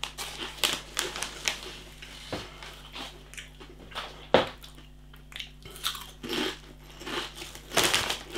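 Close crunching and chewing of folded tortilla crisps in the mouth: an irregular run of sharp, crisp cracks, really crunchy.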